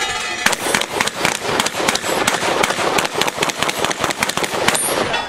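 Two shotguns fired rapidly side by side, their shots coming in quick, overlapping strings.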